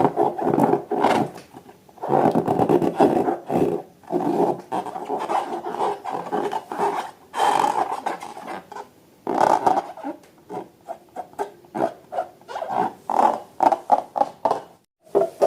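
Rubber balloons and slime being squeezed and handled: irregular rubbery squeaks and squelches in stops and starts.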